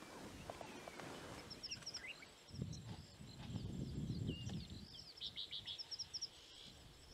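Faint bush ambience: small birds calling with high chirps, short whistles and quick trilled runs, over a low rumble partway through.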